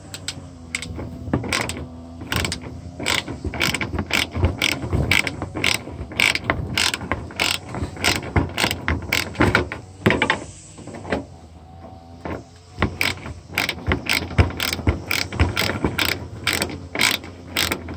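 Hand ratchet wrench with a 10 mm socket clicking in quick runs of back-strokes as a bolt is loosened, with a brief pause around the middle.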